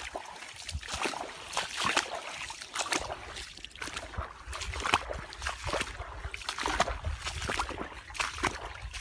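Tidal marsh water trickling and splashing, with many small irregular clicks and pops over a steady low rumble.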